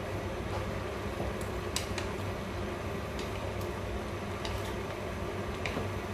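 Wooden spatula stirring and turning vegetables in an aluminium pot, with a few light, sharp knocks against the pot, over a steady low hum.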